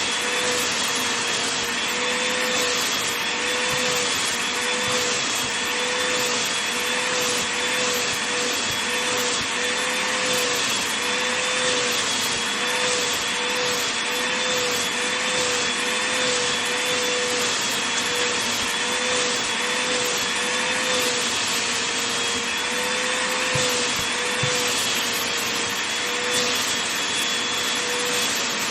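Vacuum cleaner running steadily over a blanket, a constant rushing whoosh with a motor whine that wavers slightly in pitch.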